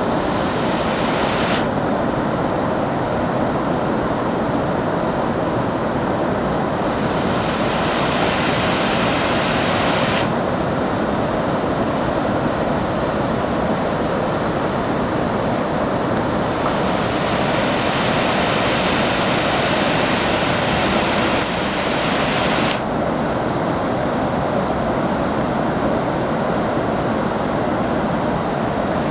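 A waterfall rushing with a steady, full noise. The hiss brightens and dulls several times.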